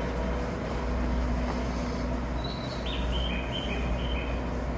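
Steady low rumble of a station platform beside a stopped train, with a short run of high electronic chime notes, stepping down in pitch, about halfway through.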